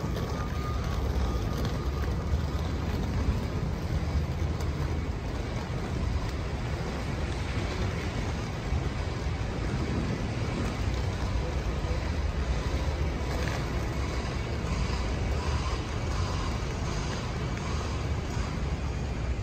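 Steady outdoor traffic noise: a continuous low rumble with a hiss over it.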